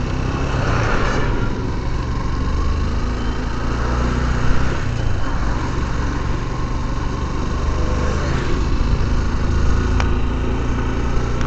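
Motorcycle engine running at a steady pace while the bike is ridden along a road, under an even rushing noise of wind and road. A single short click comes near the end.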